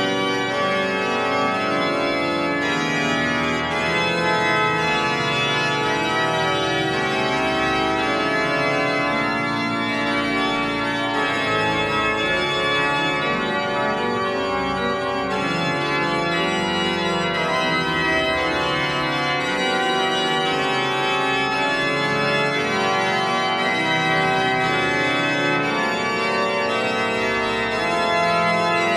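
The great pipe organ of Santa Maria de Castelló d'Empúries playing a Spanish Baroque tiento, several held voices moving against one another at a steady, full level.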